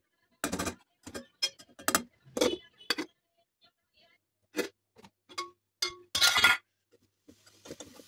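Spatula knocking and scraping against a steel kadai while stirring grated carrots, with sharp metal clinks of the steel lid, a couple of which ring briefly, and a louder clatter about six seconds in.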